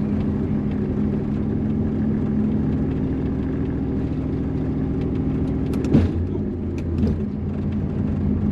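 A car's engine running steadily at cruising speed with road rumble, heard from inside the moving car, with a sharp thump about six seconds in and a smaller one a second later.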